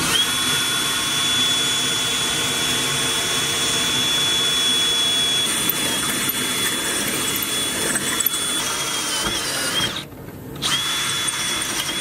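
Cordless drill motor running with a steady high whine as it drives a self-tapping screw into the van's underbody sheet metal to mount a rock light. The pitch wavers just before it stops about ten seconds in, then it starts again.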